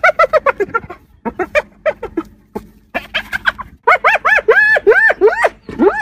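Spotted hyena cub calling in rapid staccato runs of short yelping notes, several a second, like a jackhammer. About four seconds in, the notes lengthen into calls that rise and fall in pitch.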